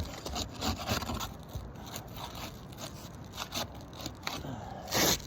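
Irregular scraping and crackling of brittle asphalt shingles being pried up, with a louder scrape near the end; the shingles are so brittle they crack and tear as they are lifted.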